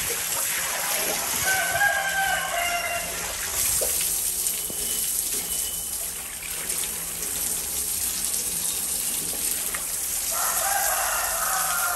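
Water splashing and trickling steadily into a tiled pond, with a rooster crowing about a second in and again near the end.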